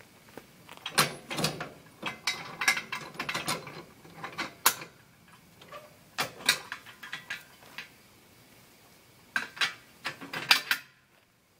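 Steel quick-attach hitch being fitted to a compact tractor's three-point hitch: metal clicks and clanks as the parts are handled and knocked into place, in three short spells.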